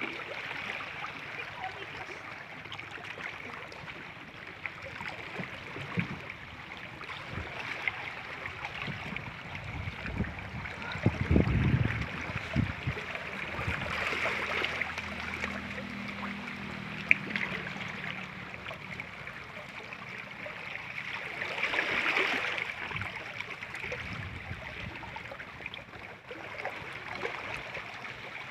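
Shallow stream running over rocks and pebbles: a steady babbling rush of water, swelling briefly about two-thirds of the way in, with a few low thumps near the middle.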